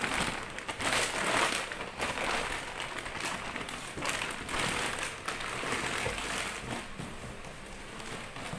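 Clear plastic bag crinkling and rustling as it is handled up close, in irregular bursts.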